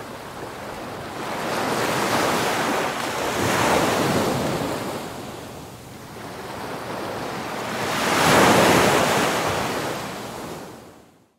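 Rushing-water whoosh sound effect that swells twice, the second surge the loudest, then fades out.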